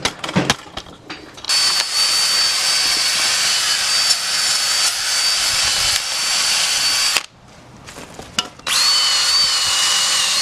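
A few short metallic clicks, then a power tool runs with a steady high-pitched whine and hiss for about six seconds. It stops for a second and a half, then starts again near the end.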